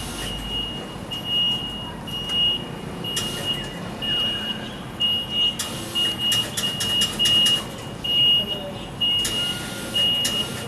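A construction vehicle's back-up alarm beeping: one steady high beep repeating about one and a half times a second over street and engine noise, with a run of sharp knocks and clatter about halfway through.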